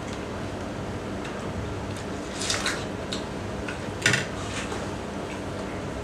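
Watermelon slices being eaten: a run of short, wet bites and slurps of the juicy flesh, the sharpest about four seconds in, over a steady low hum.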